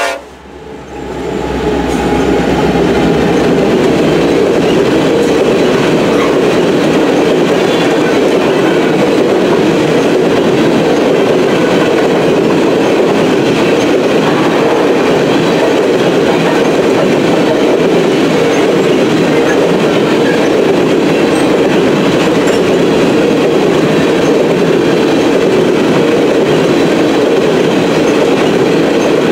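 A coal train's hopper cars rolling past at close range, with a steady, loud rumble of steel wheels on rail that settles in about a second in.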